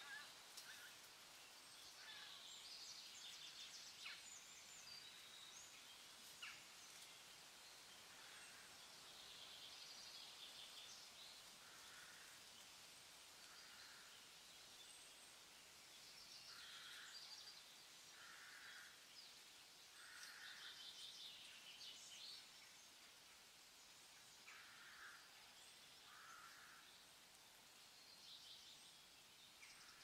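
Faint songs of several wild birds: quick high warbling phrases repeat every few seconds, with short lower calls coming in runs of two or three, over a soft hiss of outdoor air.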